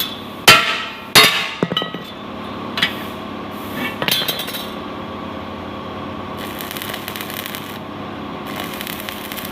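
Metal struck with a hammer: two loud ringing clanks about half a second apart near the start, then a few lighter knocks. From about two thirds of the way in, a steady high hiss joins, over a constant machine hum.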